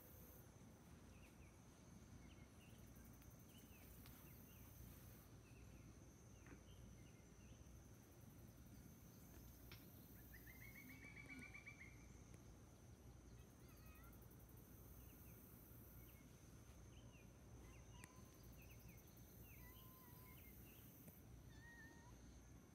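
Quiet outdoor ambience: faint, scattered bird chirps and one short rapid trill about eleven seconds in, over a steady thin high tone and a very high hiss that comes and goes in stretches of a few seconds.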